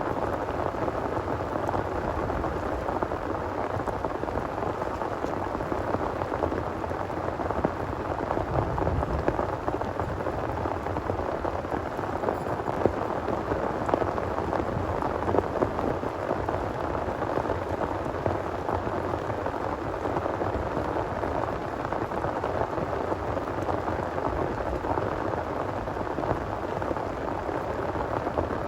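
Heavy rain pouring steadily, a dense unbroken patter over a low rumble.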